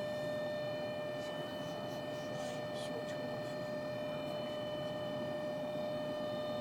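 Lexus LX570 cabin blower fan running with a steady whine over the rush of air. This is a noise the fan makes when it is cold outside, here at 28°F.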